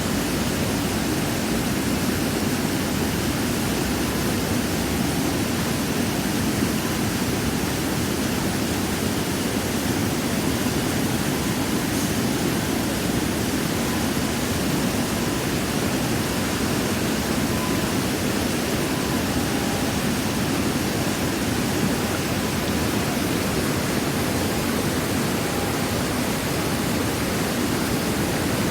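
Falling water rushing steadily: an even, unbroken noise, heaviest in the low-middle range.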